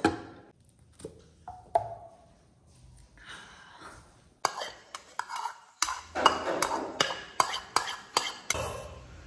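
Cutlery clicking against a bowl and dishes while eating, with a quick run of sharp taps in the second half.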